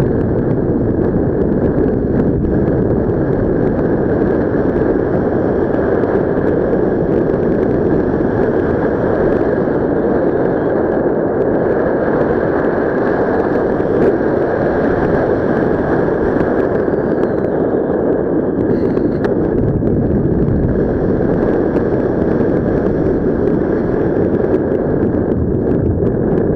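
Airflow from paragliding flight buffeting a helmet camera's microphone: a loud, steady wind rush.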